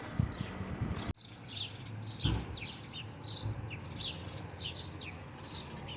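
Small songbirds chirping, many quick short chirps sliding downward in pitch, one after another. A few low thumps sound in the first couple of seconds.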